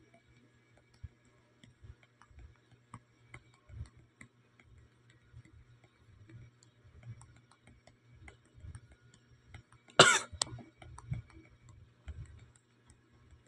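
A person coughs once, loudly, about ten seconds in, with a few softer noises just after. Faint small clicks come and go around it.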